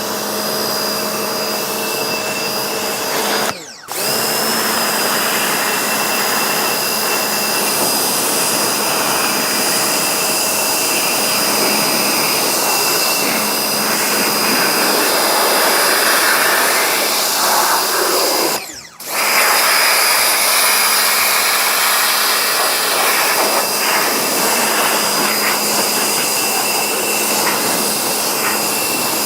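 A small electric motor on a cleaning tool running steadily with a high whine, broken off briefly twice.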